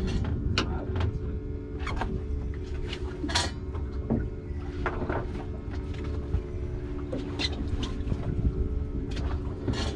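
Boat engine running steadily at trolling speed, with several short, sharp knocks.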